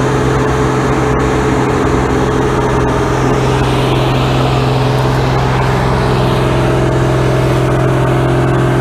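A large farm machine's engine running steadily at a constant speed with a strong low hum, as during combine harvesting of barley.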